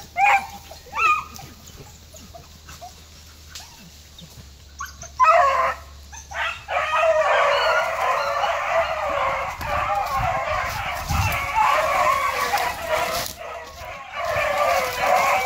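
Beagles yelping twice, then from about five seconds in the whole pack baying together in a continuous chorus of overlapping cries: hounds giving tongue as they work a scent into cover.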